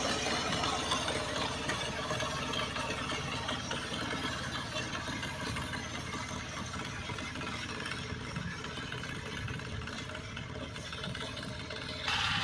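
Power tiller's single-cylinder diesel engine running steadily, slowly growing fainter, then suddenly louder again near the end.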